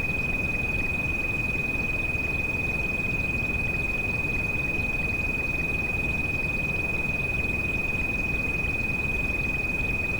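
A steady high-pitched pure tone, the tinnitus treatment frequency, holds without a break over constant rain noise that is heaviest in the bass.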